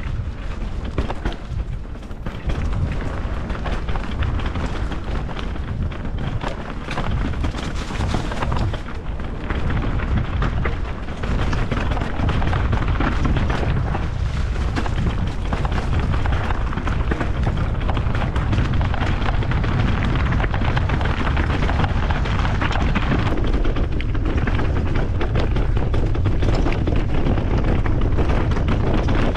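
Mountain bike descending a leaf-covered dirt trail: wind buffeting the action camera's microphone as a steady low rumble, over tyres crackling through dry leaves and the bike rattling over bumps. It gets louder about a third of the way through.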